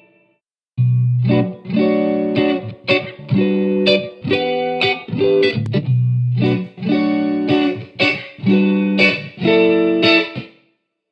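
Electric guitar playing a short phrase of plucked notes through a tube-radio-style reverb effect, the phrase heard twice, starting about a second in and stopping shortly before the end.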